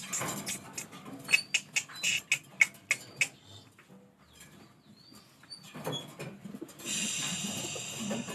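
Pigeons at close range: a quick run of sharp taps and scratches, then a few faint short high chirps. Near the end comes a high-pitched squeal lasting about a second and a half.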